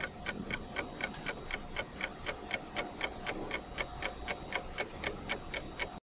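Steady, even ticking like a clock, about four ticks a second, which stops abruptly near the end.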